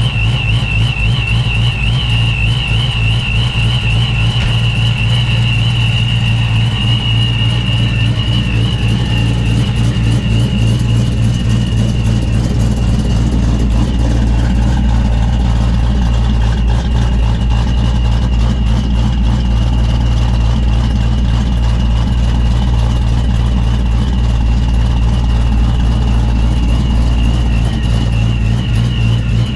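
A 347 stroker Ford small-block V8 in a Foxbody Mustang idling steadily, with a high whine over it that wavers at first and then holds. This engine has worn-out main and rod bearings after only about 1,500 miles.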